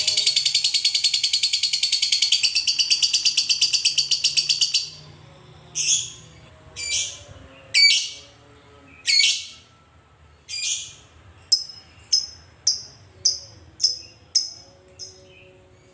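Fischer's lovebird giving its long, rapid rattling chatter (the 'ngekek'), which cuts off about five seconds in. It is followed by single sharp high chirps, at first about a second apart, then quickening to about two a second.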